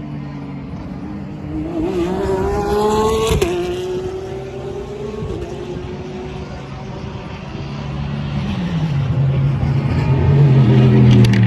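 Race cars on track: one accelerates, its engine note climbing and then dropping at an upshift about three and a half seconds in, while a deeper engine note grows louder toward the end, with a few sharp pops just before the end.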